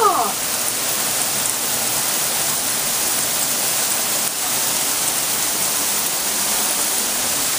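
Heavy rain pouring down steadily, an even hiss of a downpour on the street and ground.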